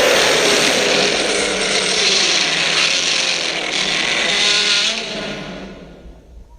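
Long, rough monster roar sound effect for the Beast, mixed from lion, tiger, King Kong and Godzilla roars. It holds steady, then fades out over the last second or so.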